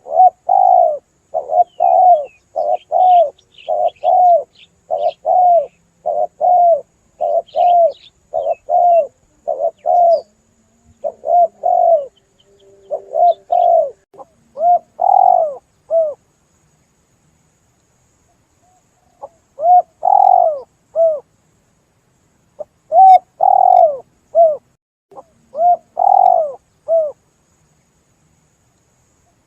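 Spotted dove (tekukur) cooing: long series of short, arched coo notes, broken by a pause of about three seconds near the middle before further phrases. Faint high chirps of small birds sound above it in the first half.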